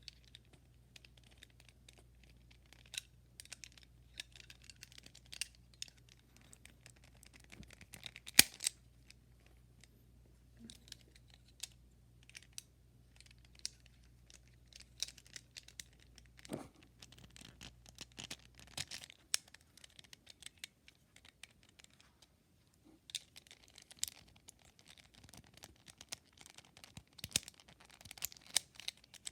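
Plastic Rubik's Cube pieces clicking and scraping as they are fitted back into a partly reassembled 3x3 cube, in scattered faint clicks with one sharp snap about eight seconds in.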